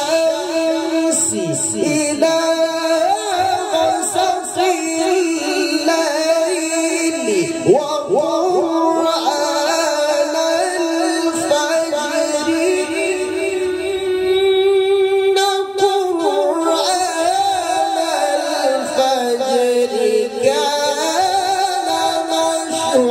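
A man's voice in melodic Quran recitation (tilawah), sung into a microphone and heard through a PA system, in long drawn-out phrases of held notes with wavering ornaments; the melody sinks lower late on and climbs again near the end.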